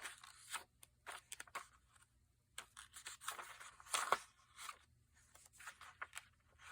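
Paper sheets rustling and shuffling in short, irregular scrapes and crinkles, loudest about four seconds in.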